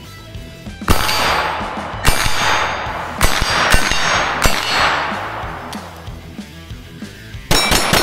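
Pistol shots at steel targets: several sharp reports about a second apart, each followed by a ringing clang from the steel, then a pause and another shot near the end.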